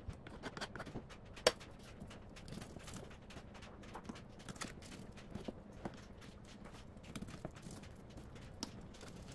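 A kitchen knife slicing raw rockfish fillets for sashimi and tapping on a wooden cutting board: light, irregular knocks, with one sharper knock about one and a half seconds in.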